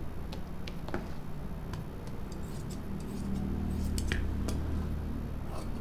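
Large steel tailor's shears snipping cloth on a table: a scattered series of short, sharp blade clicks, over a steady low hum.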